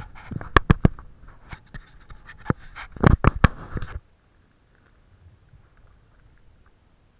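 Handling noise on a body-worn action camera's microphone: a rapid series of sharp knocks and crackles over a rustle. It cuts off suddenly about four seconds in, leaving only a faint low background.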